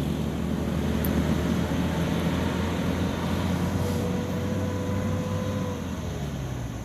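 Heavy vehicle's engine running steadily with road noise, slowly fading away.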